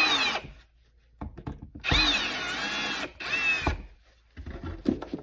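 Power drill driving the receptacle's mounting screws into the electrical box in short trigger bursts, its motor whine rising and falling in pitch. It stops briefly, runs again about two seconds in and gives a short burst, then small clicks near the end.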